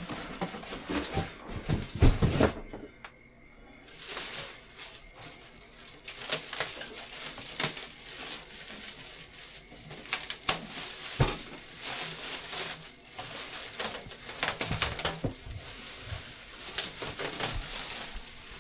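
Packing material being pulled off and moved around: irregular rustling and crinkling with scattered clicks and knocks, and a louder thump about two seconds in.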